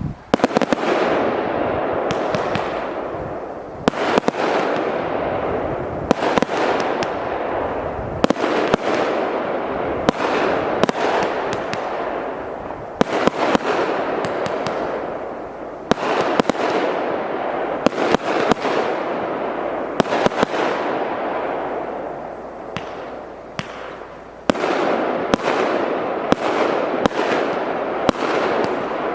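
A 200-shot consumer firework battery (cake) firing shot after shot, several sharp pops a second, each trailing off in a fading hiss, with a short lull about 24 seconds in before the shots resume.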